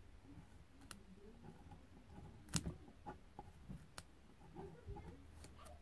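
Faint sounds of a pen writing on paper, with a few light, sharp clicks or taps spread through, the loudest about two and a half seconds in.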